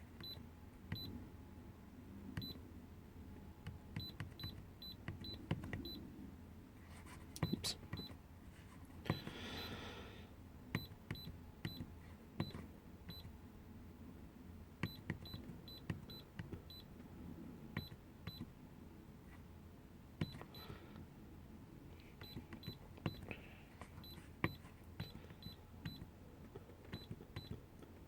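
Short, high electronic beeps at irregular intervals, each with a click, like keypad presses on a handheld diagnostic scan tool being stepped through its menus.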